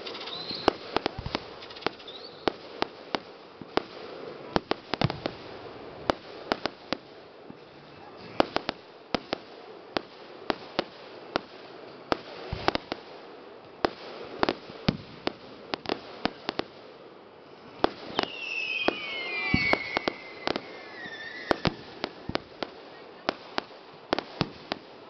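Aerial fireworks exploding in a rapid, irregular string of sharp bangs and crackles, several a second. A little past two-thirds of the way through, high whistling tones slide down in pitch among the bangs.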